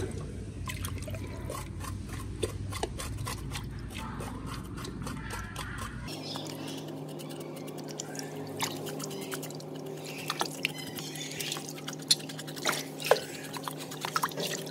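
Water dripping and splashing, with many small clicks and knocks. About six seconds in, the background cuts abruptly to one with a steady low hum, and a few sharper knocks come near the end.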